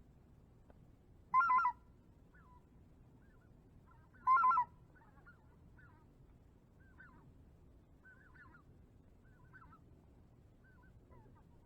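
Goose honks: two loud honks about three seconds apart, over many faint, short goose calls scattered throughout.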